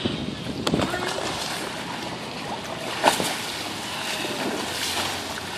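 Wind buffeting the microphone over splashing water as a dolphin leaps and rises out of the pool. There is a brief sharp knock about three seconds in.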